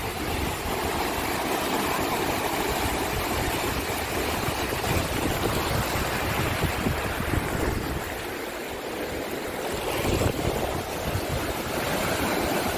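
Sea surf breaking and foaming water washing up over the sand in a steady rush, easing briefly about eight seconds in and building again.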